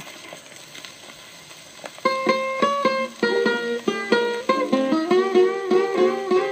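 Surface hiss of a 78 rpm shellac record. About two seconds in, the guitar introduction of a blues recording begins: quick plucked single notes with some bent notes.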